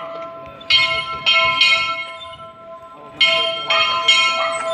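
Church bell struck in quick groups of three, one group about a second in and another about three seconds in, the notes ringing on between strikes.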